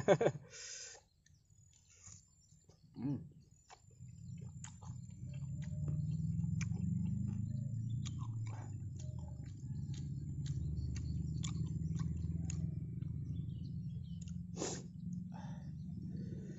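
Chewing of a crisp fried snack on a skewer, heard as many short sharp clicks, over a steady low rumble that comes in about four seconds in.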